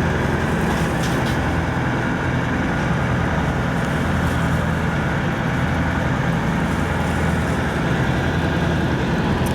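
A sportfishing boat's engine running steadily with a low, even hum.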